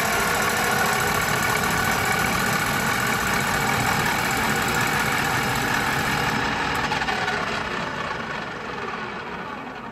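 Colchester Student lathe running, its tool taking a facing cut across a metal plate held in a four-jaw chuck: a steady machine whine mixed with cutting noise. Around six to seven seconds in the lathe is switched off and spins down, the sound fading away.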